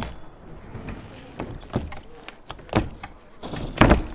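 BMX bikes rolling over skatepark ramps, with scattered knocks and a loud thud near the end as a rider hits the surface.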